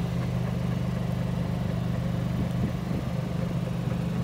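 A small motor humming steadily at an even pitch, with no change in speed.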